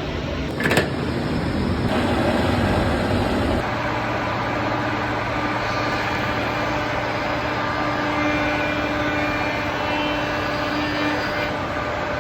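Surface planer running with a steady mechanical noise, a sharp click about a second in and a louder stretch over the next few seconds before it settles.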